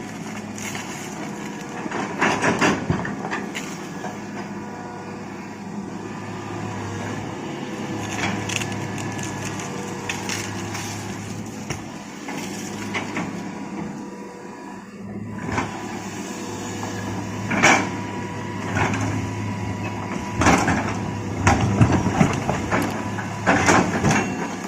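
Hitachi excavator's diesel engine running steadily under work, with irregular clanks and knocks of rock against the steel bucket several times, most of them near the end.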